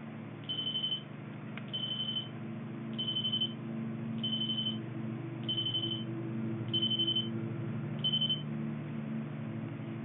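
Telephone giving seven short, high electronic beeps at one pitch, evenly spaced about 1.2 seconds apart, as a number is keyed in to call another phone on the line. A steady low hum runs underneath.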